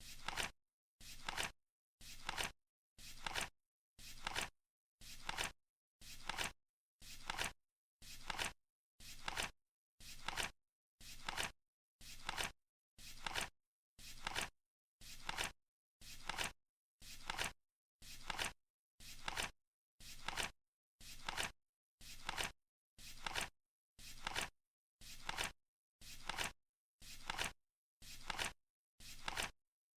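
Flip-clock countdown timer: a short flap of the flip card once every second, in a steady, even rhythm.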